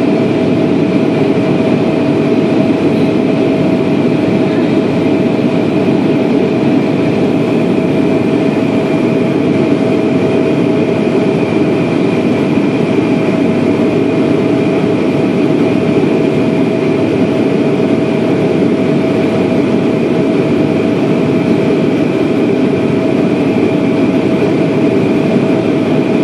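Airliner cabin noise in cruise, heard inside the cabin: a loud, steady drone of engines and rushing air with a steady whine over it.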